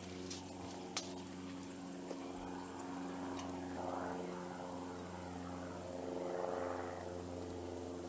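Water running out of the end of a garden hose and splashing onto grass, swelling softly twice, over a steady low hum; a few faint clicks come in the first couple of seconds.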